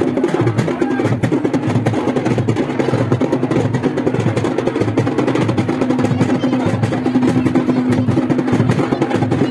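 Festival procession music: fast, dense drumming with a steady held pitched tone running over it.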